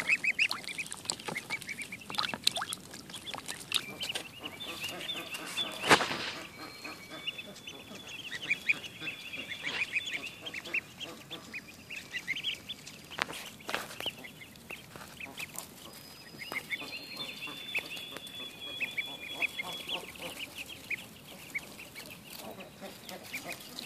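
A group of ducklings peeping constantly in short high chirps, many overlapping. A few brief sharp noises break in, the loudest about six seconds in and another about halfway through.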